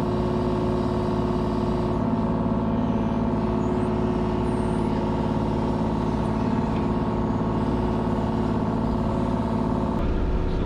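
Kubota KX033 mini excavator's diesel engine running steadily under work, heard from inside the glass cab.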